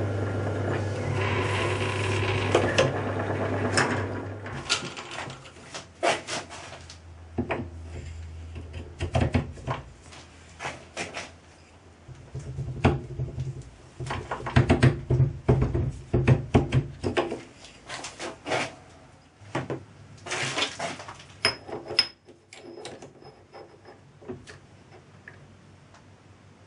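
Metal lathe running with a steady hum, shutting off about four seconds in; then metal clinks and knocks as the cast pulley blank and a mandrel are handled and fitted in the chuck, with a dense stretch of clatter in the middle.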